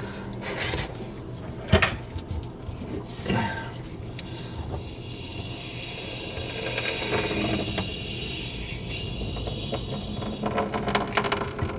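A few knocks as a hose is worked into an open kitchen-sink drain stub-out. From about four seconds in, a steady hiss of water running from the hose into the drain pipe, with water spilling back out of the opening, which the plumber takes as a sign that the drain may be backing up.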